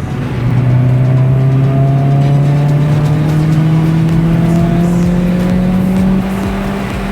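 Renault Clio 2 RS 2.0 16v four-cylinder engine with a Miltek exhaust pulling hard in gear, its note climbing steadily in pitch for about six seconds before the level eases slightly near the end.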